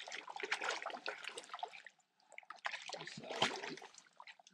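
Water splashing and sloshing in short, irregular bursts, with a brief pause about two seconds in and one sharper splash or knock near the end.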